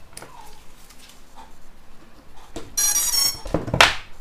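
FPV quadcopter powering up as its battery is connected: a short run of high electronic startup beeps about three seconds in, followed by a loud scuff of handling.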